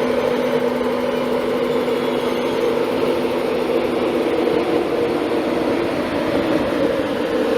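A train running steadily, with an even mechanical hum and rushing noise that neither rises nor falls.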